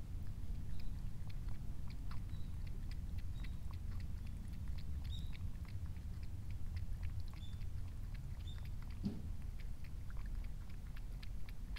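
Cat lapping water from a tub: a fast run of small wet clicks, several a second, that goes on throughout over a low steady rumble.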